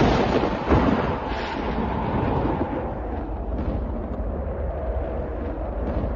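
A thunderclap with a second crack about a second in, then thunder rumbling on and slowly fading.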